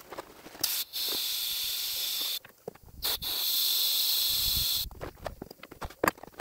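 Carbon dioxide hissing from a gas nozzle fed by a CO2 cylinder, pushed into a sodium silicate sand core to cure and harden it: a short puff, then two long bursts of about a second and a half each. A few clicks and knocks follow near the end.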